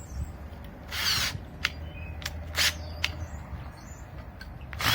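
Tools working on metal while a power tool is dismantled for scrap: three short, sharp clanks or scrapes, about a second and a half apart, over a low hum.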